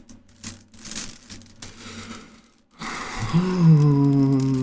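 Rubik's cube being turned quickly by hand, its plastic layers clicking and rattling, then about three seconds in a drawn-out groaning hum from the solver, held for about a second and a half and dropping slightly in pitch.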